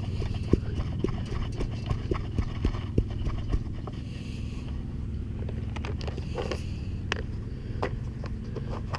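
Handling noises as a recovered coin and the digging tools are picked over in the grass: scattered light clicks and knocks over a steady low rumble.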